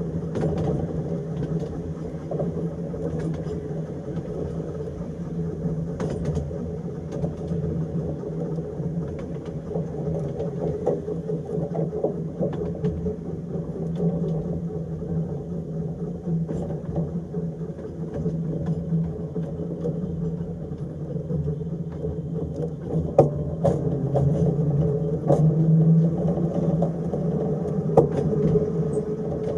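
Electric tram running along track: a steady hum and rumble of the motors, gears and wheels, with sharp clicks as the wheels cross rail joints and points, louder and more frequent in the last several seconds.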